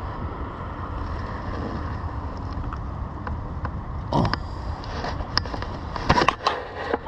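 Steady low rumble of wind on the microphone, with scattered clicks and a couple of short brushing knocks as the fishing rod and gear are handled, around four and six seconds in.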